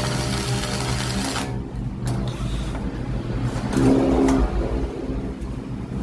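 TIG welding arc buzzing and hissing over the welding machine's steady hum; the arc cuts off sharply about a second and a half in, leaving the low hum and a few light clicks.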